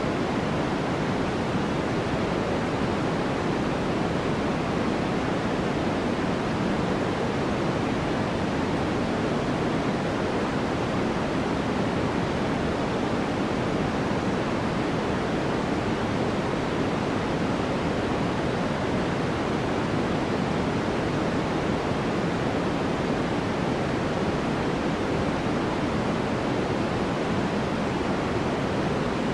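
Steady electronic white noise for sleep: an even, unchanging hiss, heavier in the lows than the highs.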